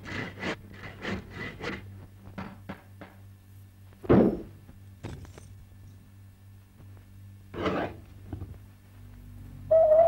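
A quick run of light wooden taps, about three a second, then two louder scraping thumps about four and eight seconds in. Near the end a hooting bird call begins.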